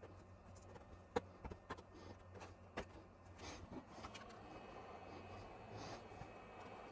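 Faint scattered clicks and taps as a small blade works at the corner of a ZX81's membrane keyboard, over the low steady hiss of a hot air gun that grows a little stronger from about halfway.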